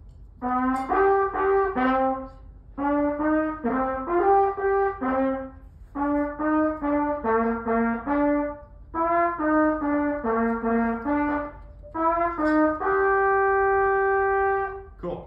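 A single brass instrument playing a short band exercise melody: phrases of quick notes separated by brief pauses, ending on a note held for about two seconds.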